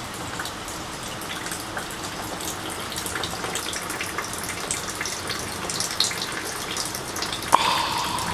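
Heavy thunderstorm rain pouring down, a steady hiss scattered with countless small drop impacts. Near the end a sharp click is followed by a brief steady hum.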